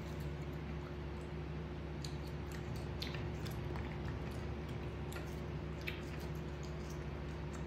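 A macaque chewing soft jackfruit flesh, with scattered wet mouth smacks and clicks. A steady low hum runs underneath.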